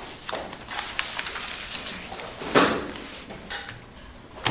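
A man sitting down on a chair: scuffs and rustles of the chair and his coat, the loudest about two and a half seconds in, with a short knock just before the end.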